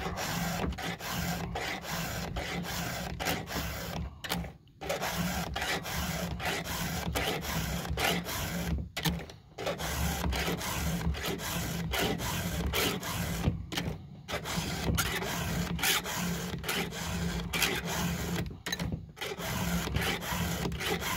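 A 7/32-inch round file rasping across the cutter teeth of a Husqvarna 572 XP chainsaw chain in quick, repeated hand strokes, sharpening the chain. The scraping breaks off briefly about every five seconds.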